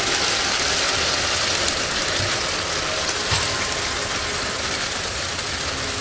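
Heavy rain driven by strong wind against an RV, a steady rushing noise that eases a little toward the end, with a few sharp ticks of drops striking.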